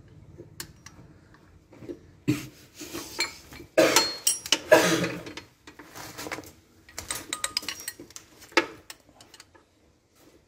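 Hand tools clinking and scraping against metal engine parts, in irregular clicks with a louder clattering spell about four to five seconds in.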